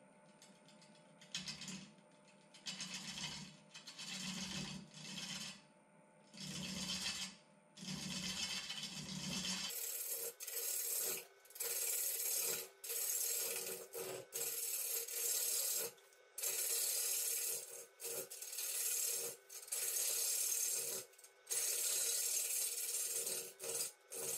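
Carbide turning tool cutting into a spinning box elder blank on a wood lathe: repeated rasping passes of about a second each, with short breaks between. About ten seconds in the passes become louder and closer together.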